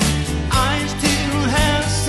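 A man singing a song into a microphone while strumming an acoustic guitar.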